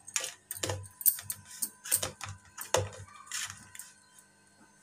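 Metal spoon scraping and clinking against a steel plate as it stirs dry ground spice masala into mustard oil, in irregular strokes that die away near the end.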